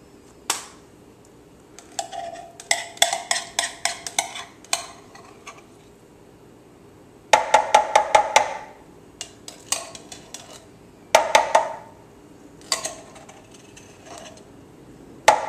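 Metal spoon scraping canned pumpkin out of a tin can and tapping against the rim of a blender cup to knock it off, in several bursts of quick ringing clinks with pauses between.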